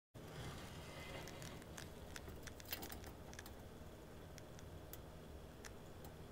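Blue M Lab-Heat M-10A electric muffle furnace at about 1000 °C, giving a faint, steady low hum with scattered small ticks and clicks. The ticks come thickest in the first half and thin out later.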